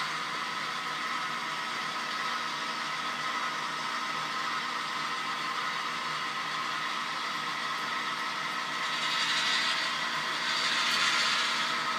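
Sound-equipped model diesel locomotives running, with steady high squealing tones of a brake squeal effect over a continuous hum. A brighter hiss swells about nine seconds in and again near eleven seconds.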